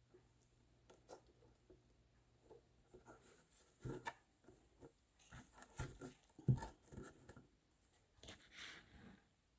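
Faint handling noise from sticks and a plastic jug being worked on while gluing: scattered light knocks and clicks, busiest in the middle, and a short rustle near the end.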